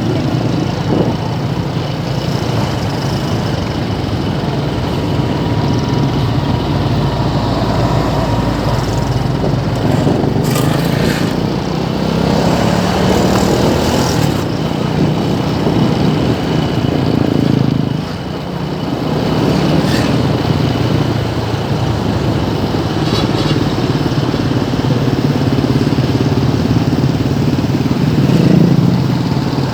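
Motorcycle and car engines running in slow, congested traffic: a steady mass of engine noise with a few brief sharp sounds about ten, fourteen and twenty seconds in.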